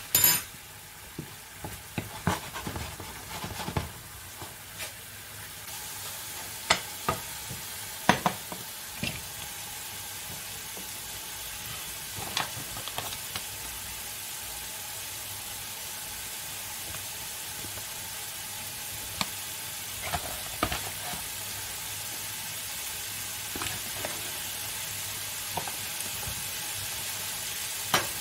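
Steady sizzling hiss of food cooking on the hob, with scattered clinks and knocks of spoons against pans and a bowl. The hiss grows brighter about six seconds in.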